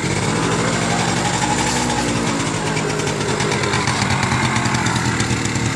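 1993 Yamaha Razz moped's small two-stroke single-cylinder engine idling steadily, shortly after its first cold start following winter storage.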